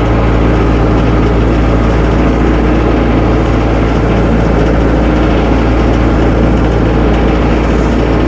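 Tractor engine running steadily while the tractor is driven slowly back and forth.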